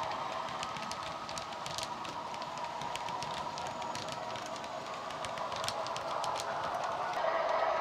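Diesel engine sound from a Coastal DCC Class 40 sound decoder playing through a small tablet speaker in a moving OO gauge model locomotive, with irregular clicks from the wheels of the passing model coaches. The sound grows louder near the end.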